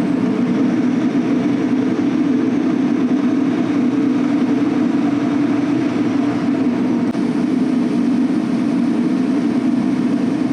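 Semi truck cruising at highway speed, heard from inside the cab: a steady drone of engine and road noise.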